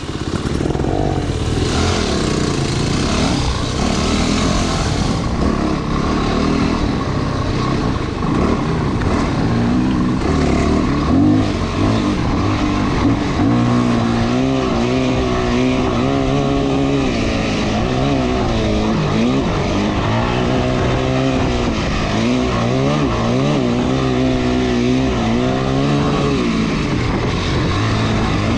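Off-road motorcycle engine running under way, its revs rising and falling again and again as the rider works the throttle.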